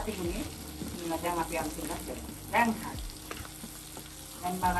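Seafood (crab, prawns, squid) and sausages sizzling in a nonstick frying pan as they are stirred and tossed with a wooden spatula, with small scrapes and knocks of the spatula against the pan.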